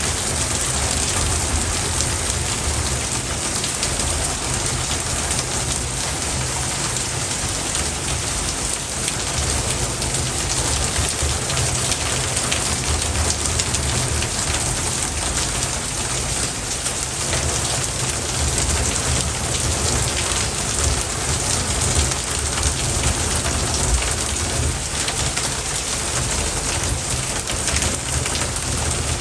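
Steady, even rushing noise like heavy rain falling, unchanging throughout.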